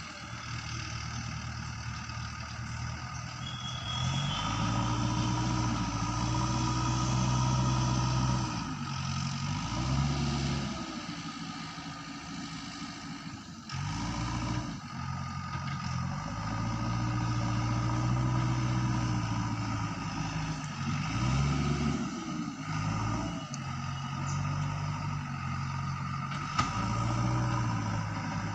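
JCB 3DX backhoe loader's diesel engine working, revving up and dropping back over and over as the throttle is worked, with short dips toward idle.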